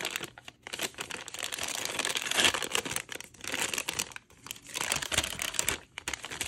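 Paper treat bag crinkling and rustling as it is handled and pulled open by hand, in spells broken by short pauses.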